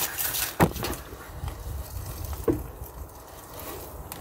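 A goat bumping into the camera: a sharp knock about half a second in and a softer one about two seconds later, over a low rumble of the camera being jostled.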